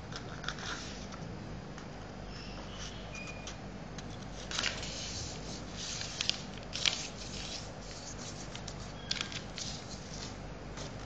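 Origami paper rustling and crinkling in the hands as it is folded and creased, in short scattered bursts. The loudest come a little before halfway and just past the middle.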